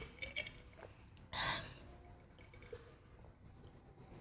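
A person drinking from a glass jar of iced water, quietly: a few faint clinks near the start, then one short breathy noise about one and a half seconds in.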